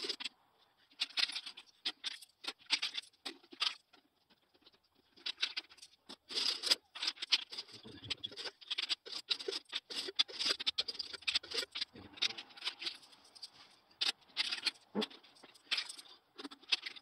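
500-yen coins clinking and scraping as they are picked up, slid and stacked on a wooden table, played back sped up so the clicks come as a rapid, high chatter in bursts with short pauses.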